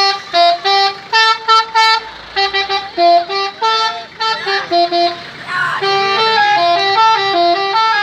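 Multi-tone telolet horn on a jeep playing a tune of short stepped notes: quick separate toots at first, then from about six seconds a run of notes played almost without a break.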